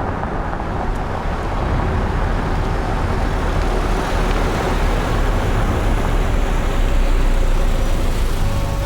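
Motor vehicle driving, a steady rush of engine and road noise that swells slightly near the end.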